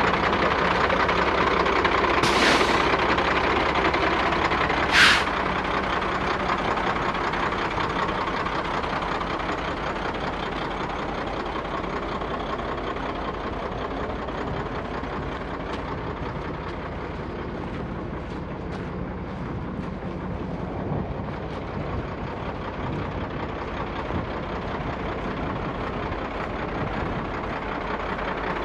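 1996 Kenworth T300 box truck's diesel engine idling, a steady rumble that gradually gets quieter. Two short hisses of air released from the truck's air system cut through, about two seconds in and again about five seconds in, the second shorter and louder.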